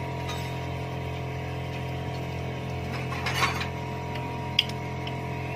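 Small metal clinks and a short scrape from handling a motorcycle's rear drum brake shoes and their return spring, with one sharp click about three-quarters of the way through, over a steady background hum.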